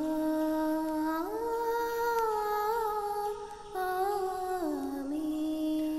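A wordless melody of long held notes. It glides up to a higher note about a second in, dips briefly around the middle, and steps back down near the end, as an interlude between lines of a sung hymn.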